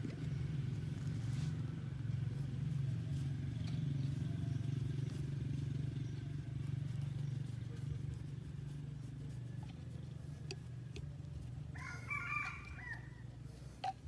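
A rooster crows once, about twelve seconds in, a short pitched call over a steady low rumble.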